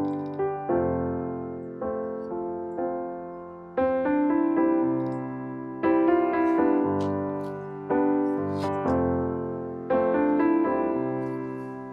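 Background piano music: slow chords struck one after another, each left to ring and fade before the next.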